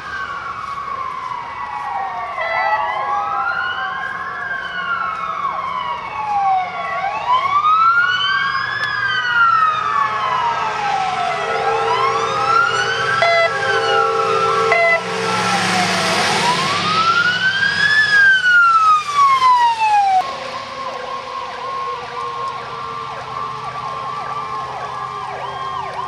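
Emergency vehicle sirens responding to a call, loud. One wails in a slow rise and fall about every four and a half seconds, with a steady low tone for a few seconds in the middle and a rush of tyres on wet road as a vehicle passes. The wail cuts off about 20 s in, and a faster-cycling siren carries on.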